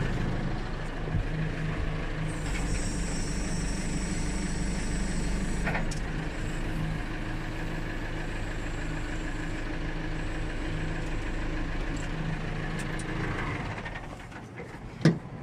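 Engine idling steadily. The sound drops away near the end, and there is a single click just before the end.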